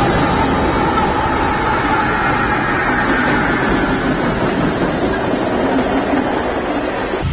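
Freight train passing at close range: a string of diesel locomotives running by with a steady rumble and the rush of wheels on the rails. Tank cars begin rolling past near the end.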